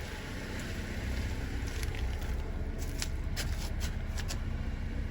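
2007 Honda Civic's 1.8-litre four-cylinder engine idling steadily, with a short run of light, irregular clicks and scuffs about halfway through.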